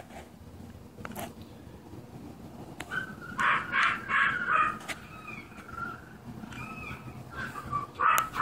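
Animals calling: runs of short, repeated calls about two a second, starting about three seconds in and again near the end, over a faint, steady low rumble.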